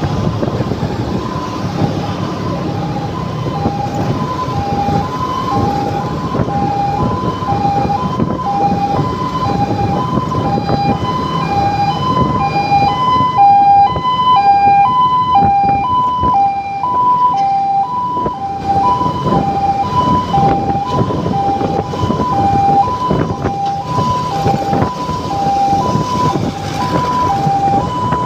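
Two-tone hi-lo emergency-vehicle siren, a high and a low note alternating quickly, each held about a third of a second, loudest around the middle. Scooter engine and traffic noise run underneath.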